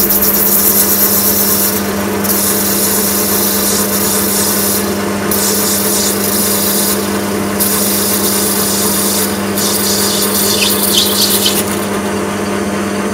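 Bernardo metal lathe running with a steady hum while a 2 mm parting tool with a sharp aluminium-cutting insert parts off a spinning acrylic (Plexiglas) tube. Over the hum, a hissing scrape of the cut comes and goes in several stretches of one to two seconds each as the tool is fed in.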